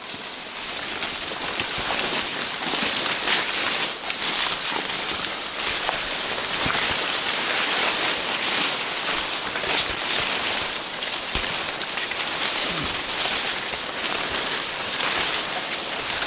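Wet leaves and branches rustling and crackling steadily against the camera and rain gear as a hiker pushes through thick brush.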